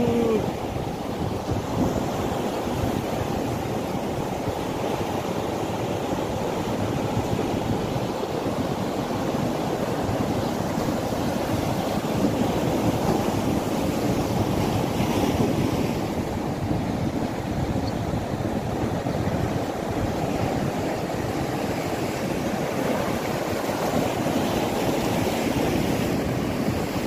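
Sea surf breaking and washing against boulders, a steady rushing noise, with wind buffeting the microphone.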